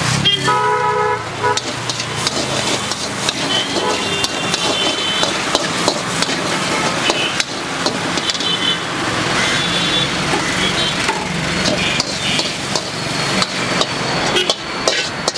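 Metal spatula scraping and knocking against an iron wok as egg and mushroom are stir-fried, then banging on the wok's rim as the food is tipped out near the end. Street traffic runs behind it, with vehicle horns honking about half a second in and again later.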